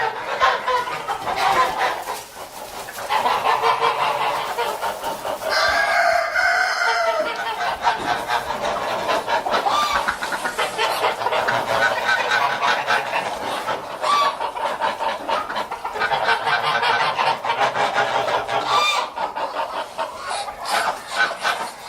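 A flock of farmyard poultry calling over one another without a break, in dense rapid clucking, with one long drawn-out call about six seconds in and a few short higher calls later.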